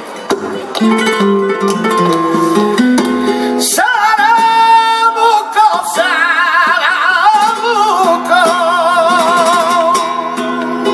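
Flamenco soleá apolá: a flamenco guitar plays with hand-clapped palmas, and about four seconds in a male flamenco singer enters with a long, wavering, ornamented sung line over the guitar.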